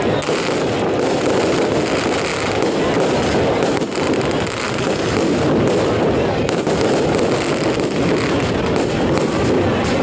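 Fireworks going off in a dense, continuous barrage of bangs and crackles, with no pauses.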